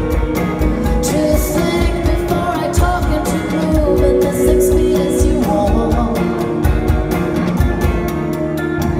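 Live rock band playing a pop-rock song: drum kit, electric guitar and bass guitar, with a woman singing the melody over them.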